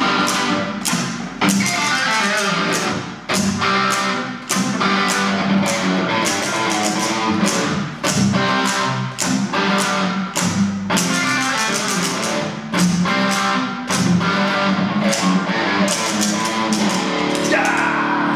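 Electric guitar played through a small Marshall combo amp, with a steady pulse of sharp hits about twice a second. Near the end the rhythm gives way to a scratchy sweep and then held notes.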